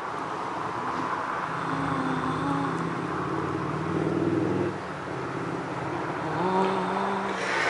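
Road traffic: vehicle engines running along a street. One engine is heard for about three seconds, and another rises in pitch near the end.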